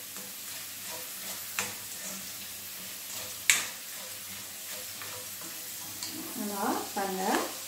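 Chana dal, mustard seeds and curry leaves sizzling steadily in hot oil in a nonstick wok while being stirred with a silicone spoon: the tempering for lemon rice. A few sharp clicks sound over the sizzle, the loudest about three and a half seconds in.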